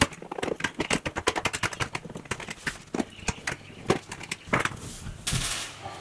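Ratcheting screwdriver clicking rapidly as it undoes Torx screws on a dishwasher's lower panel, the clicks thinning out after about three seconds, then a brief scrape near the end.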